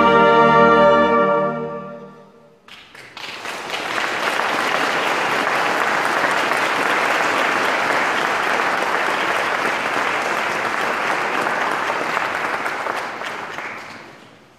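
A brass band holds its final chord, which dies away in the church's reverberation about two seconds in. Then the audience applauds steadily for about ten seconds, fading out near the end.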